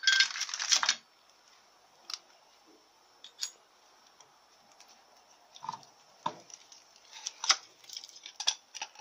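Steel automatic-transmission clutch drum, hub and clutch plates clinking and rattling as they are handled and set down. A dense rattle fills the first second, then come scattered sharp clinks that grow more frequent over the last few seconds.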